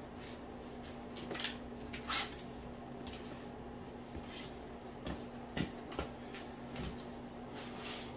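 Scattered faint knocks, clinks and scrapes of tools or metal parts being handled, over a steady low hum.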